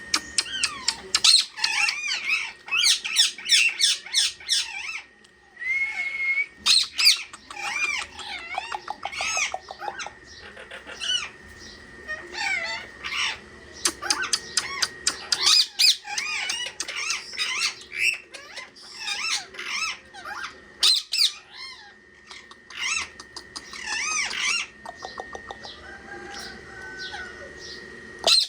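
Pet parrots chirping and squawking in rapid, repeated calls with short pauses, over a faint steady high whine.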